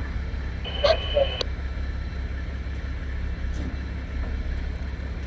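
Steady low engine rumble, with a brief burst of railroad radio from a scanner about a second in.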